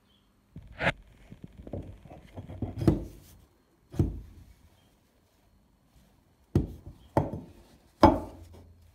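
Rusty steel hatchet head being handled and set down on a wooden workbench: about half a dozen sharp knocks of metal on wood, with lighter rattling and scraping of the head against the boards between the first few.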